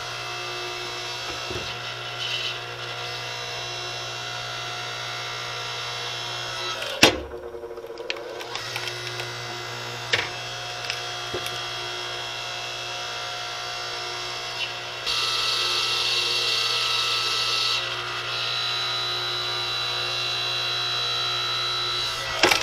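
Electric DR 5-ton log splitter's motor and hydraulic pump running with a steady hum and whine. A sharp crack about seven seconds in as a round splits, a couple of smaller cracks a few seconds later, and a louder, harsher stretch of about three seconds past the middle.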